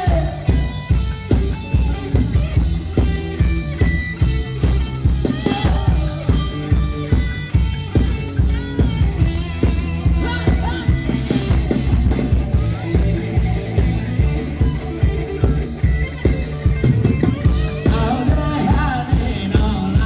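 Band playing Thai ramwong dance music through loudspeakers: drum kit keeping a steady beat under guitar, with a singer's voice coming back near the end.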